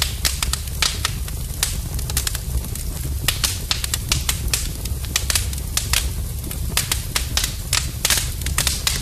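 Fire crackling: a steady low rumble of flames with many sharp, irregular pops and snaps.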